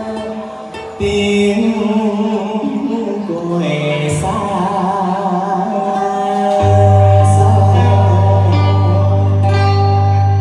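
A man sings Vietnamese vọng cổ into a microphone over amplified backing music, holding long notes with wide vibrato. A low, steady bass tone comes in about six and a half seconds in and holds.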